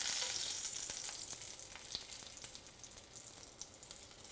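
Cornmeal-crusted fish pieces sizzling in hot oil in a cast-iron skillet, with scattered small crackles; the sizzle grows gradually fainter.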